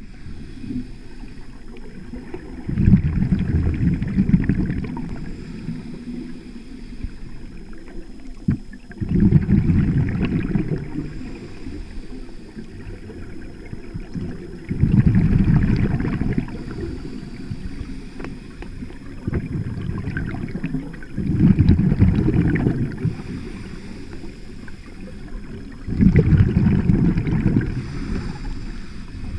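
Scuba diver breathing through a regulator, heard underwater: about six exhalations, one every five or six seconds, each a low rush of exhaust bubbles lasting about two seconds, with a quieter steady hiss between.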